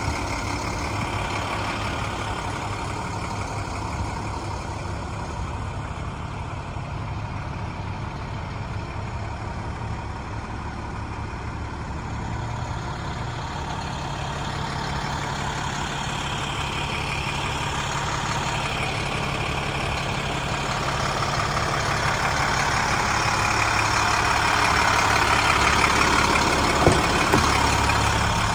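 Heavy truck's diesel engine idling steadily, growing louder over the last several seconds, with one sharp click near the end.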